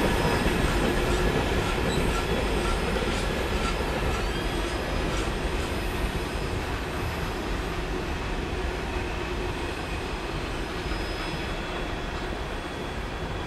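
Train cars rolling through a sharp curve: wheels clicking at an even pace over the rail and flanges squealing in thin high tones, the whole sound fading slowly as the train draws away.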